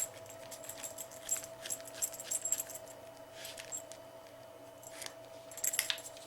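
Light clicks and rattles of a remote-collar's strap and buckle being handled as the strap is slid out through the collar receiver, scattered irregularly, over a faint steady hum.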